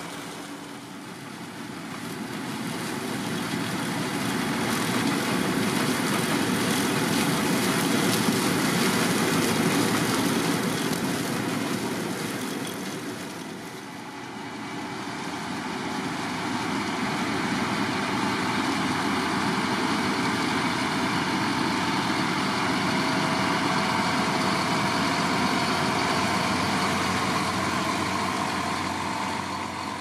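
Heavy diesel farm machinery running: a Fendt tractor hauling a Beco Super 2800 tipping trailer across the field. The engine noise swells to a steady level, dips briefly about halfway, then builds again and holds as the tractor and trailer pass.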